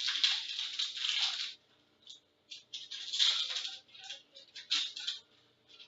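Hockey trading cards being handled and slid across one another: three bursts of rustling and sliding, with small clicks in between.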